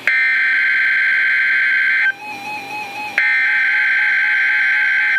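NOAA Weather Radio EAS/SAME header data bursts opening a Required Weekly Test. Two bursts of a harsh, steady digital screech, each about two seconds long, are separated by about a second. In that gap a fainter stepping tone can be heard.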